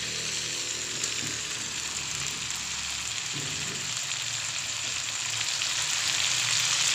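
Chicken pieces frying in oil with ground spice paste and lemongrass, a steady sizzle, with a few light spatula stirs near the start.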